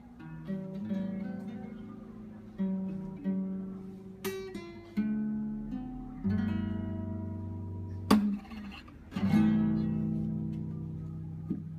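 Solo acoustic guitar playing the instrumental ending of a song: picked notes and chords, then two strong strummed chords about eight and nine seconds in, the last one left to ring out.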